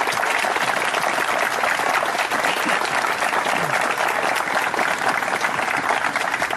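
Wedding guests applauding steadily, a warm round of clapping from many hands.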